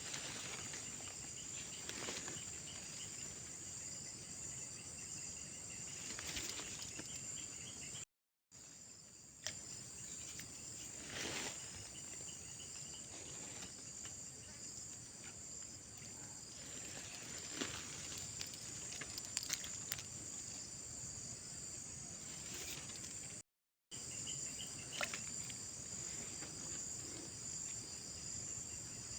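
Chorus of insects: a steady, high-pitched shrill with a fast pulse, over a soft outdoor background with a few brief swishes. The sound cuts out completely for a moment twice.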